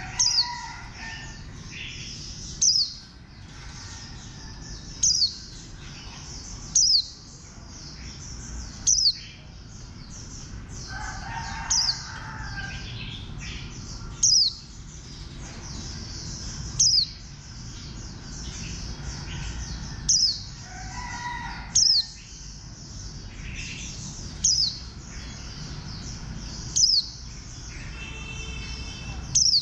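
White-eye (vành khuyên) singing a rapid, continuous high twittering song. Every two seconds or so it is broken by a loud, sharp downward-swooping note. Fainter, lower calls sound in the background.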